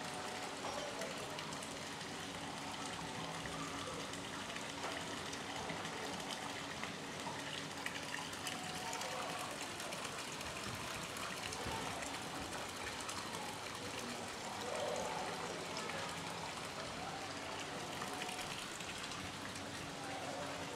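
Steady splashing and trickling of water pouring into indoor fish pools, with faint voices in the background.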